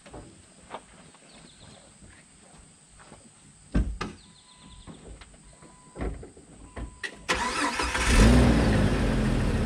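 A couple of thumps and a faint intermittent beeping, then about seven seconds in a Jeep's engine cranks and fires, revs up briefly and settles into a steady idle.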